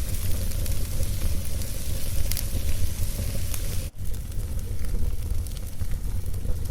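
Wood fire crackling in a fireplace: a steady low rumble of burning with scattered sharp pops and crackles, broken by a brief dropout about four seconds in.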